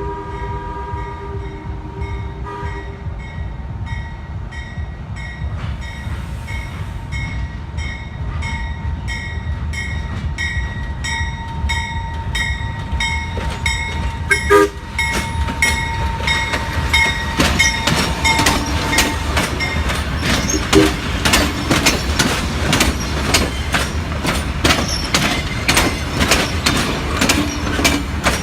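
Amtrak passenger train passing: its horn sounds and ends about two seconds in, then the wheels click over the rail joints in a steady rhythm that grows louder and quicker, over a low rumble.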